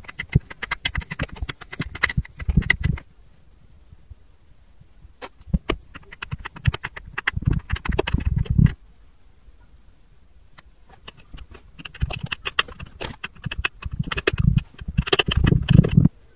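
Kinetic sand packed down inside a clear tube with a clear rod: quick crackly clicks and crunches in three bursts, each growing heavier toward its end and then stopping.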